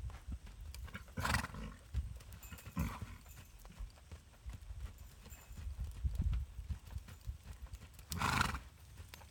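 A ridden horse's hooves thudding dully in the soft sand of an arena as it trots, with three short, louder breathy bursts about a second in, about three seconds in, and near the end.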